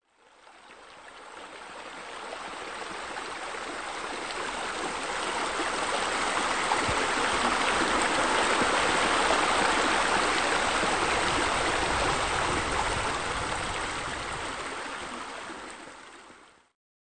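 Running water, an even rushing like water spilling from a spa into a pool. It fades in gradually, is loudest in the middle and fades away just before the end.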